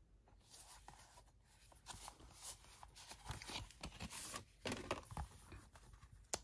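Faint handling of a 4K Blu-ray disc case as it is turned over: soft rustling and light plastic clicks, with one sharp click near the end.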